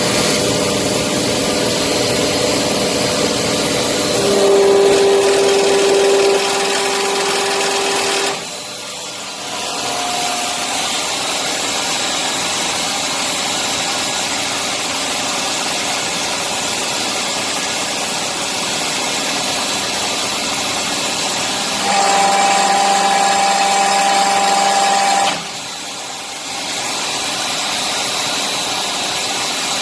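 Hydraulic pump running with a steady mechanical whir. Twice a strong steady whine comes in for a few seconds, a lower one about four seconds in and a higher one about 22 seconds in, and each ends in a brief drop in level.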